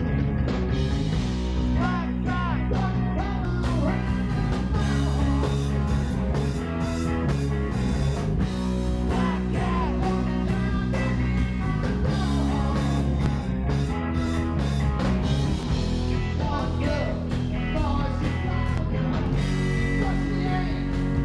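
Live rock band playing electric guitars and drum kit, with sliding, bending notes in the lead line.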